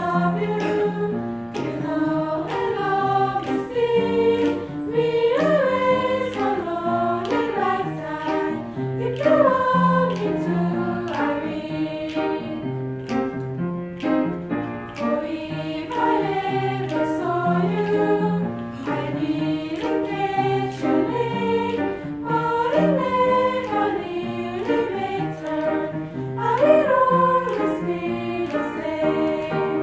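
Girls' choir singing live in harmony, several voice parts holding notes and moving together from chord to chord.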